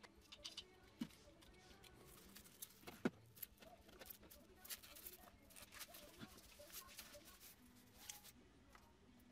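Faint crinkling and rustling of a thin wrapping sheet being handled around a headlight projector, with one sharp click about three seconds in.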